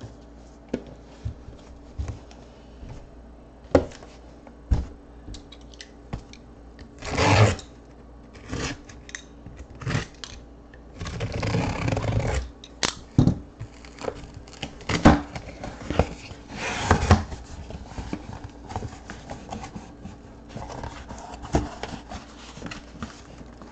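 Cardboard shipping case being cut open and unpacked: a box cutter slicing through the tape and cardboard flaps scraping and rustling in several rushes, with scattered clicks and knocks from handling.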